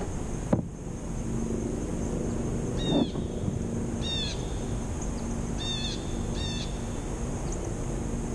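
A bird giving four short, high, slightly falling calls, spaced unevenly over several seconds. A single knock comes just after the start, over a low steady hum.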